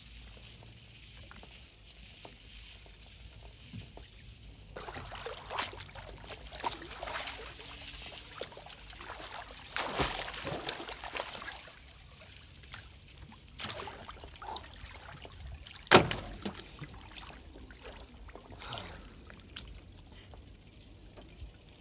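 Cold lake water splashing and sloshing around a man standing chest-deep among floating ice. There is a burst of hand-splashing about ten seconds in, and one sharp slap about sixteen seconds in.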